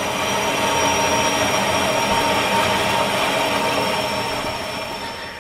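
Horizontal metal-cutting band saw running steadily as it cuts through 1/2-inch round steel bar, with a faint thin high whine over the blade noise. It fades away near the end.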